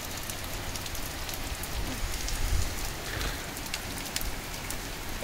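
Heavy rain falling steadily on the garden and paved path: an even hiss of rain with many small drop taps.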